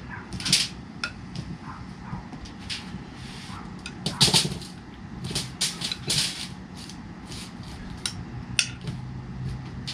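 Kitchen utensil clinking and scraping against a bowl while cooked vegetables are dished out, a string of irregular light clinks and knocks with the loudest about four seconds in.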